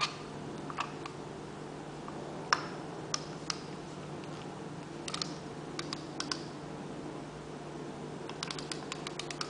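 Vintage Penguin 105D spinning reel being worked by hand: scattered sharp clicks from its crank and bail mechanism, then a fast run of rapid ticks near the end as the handle is turned.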